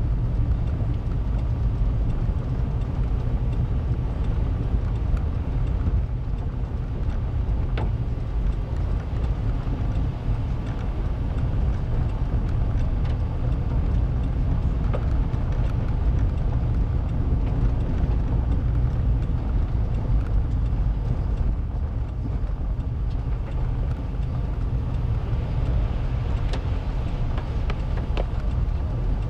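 Car driving on a rough, gravel-covered road, heard from inside the cabin: a steady low rumble of tyres and engine, with a few light ticks.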